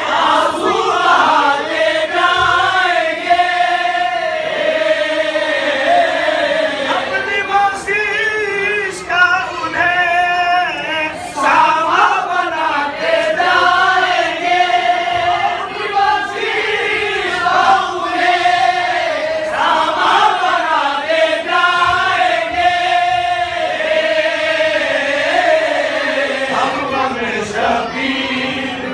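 A group of men singing an Urdu devotional lament together in chorus, voices rising and falling in a chanted melody.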